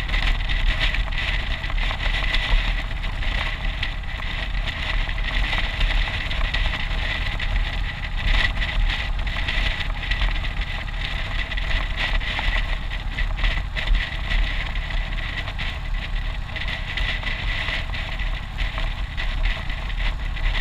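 Motorcycle engine running steadily at cruising speed under steady wind noise on the microphone, with a thin steady whine.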